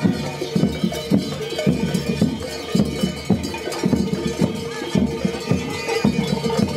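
Music with a steady drum beat of about two beats a second.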